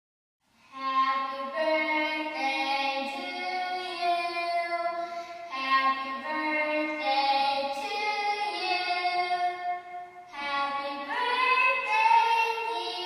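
Music: a slow melody of held notes with singing, starting about half a second in after a moment of silence.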